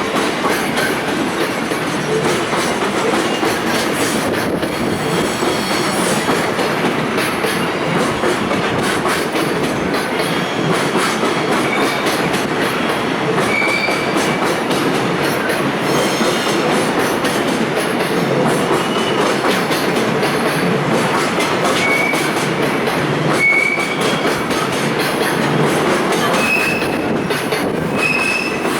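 Koki container flat cars of a departing freight train rolling past: a steady rumble and clatter of wheels on rail, with several brief high squeals from the wheels.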